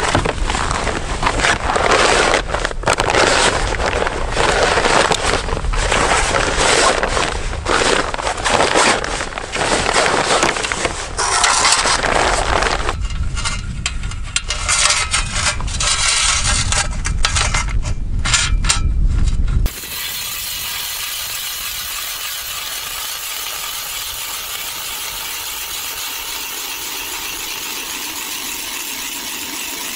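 Clattering and rustling of gear being handled: equipment taken out of a plastic sled and a hand ice auger put together, with many sharp knocks. About 20 s in it cuts off abruptly to a steady, even scraping of the hand auger's blades cutting into the ice.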